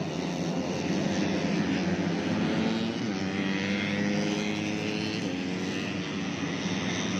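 Tuned 130cc four-stroke underbone racing motorcycle engines running at high revs, their pitch rising and falling as the bikes race.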